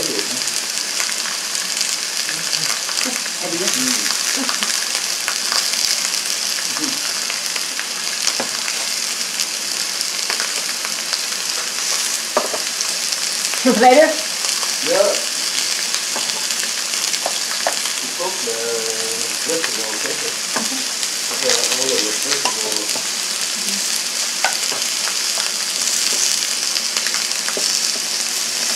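Beef rib steak and sliced zucchini, eggplant and mushrooms sizzling steadily on an electric contact grill, a continuous frying hiss dotted with small crackles. A brief louder sound stands out about halfway through.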